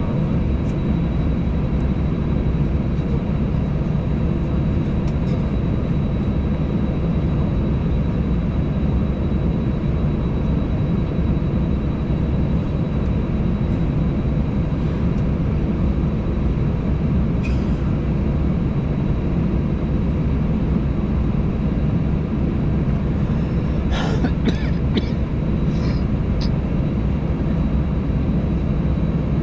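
Airbus A320 cabin drone while holding short of the runway: jet engines at idle and cabin air running as a steady low rumble, with a faint high whine. A few faint small clicks sound near the end.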